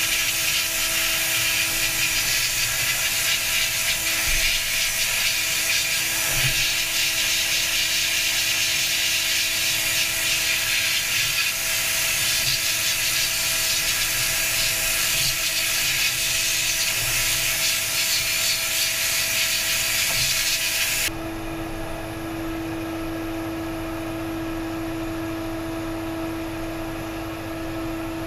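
A power tool running steadily: a motor hum under a harsh, hissing working noise. About three-quarters of the way through, the hissing stops abruptly and the motor's hum carries on alone.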